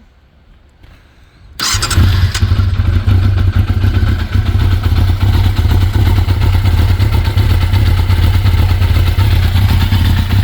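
1996 Yamaha FZR600R's inline four-cylinder engine started up after an oil change: it fires about a second and a half in, catches at once and then runs steadily.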